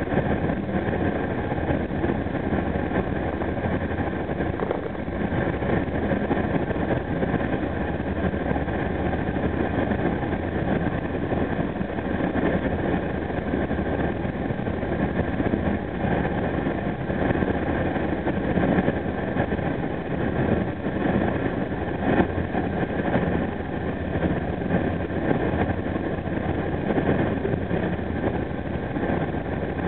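Steady running noise of a Caltrain commuter train at speed, heard from on board at the front of the train.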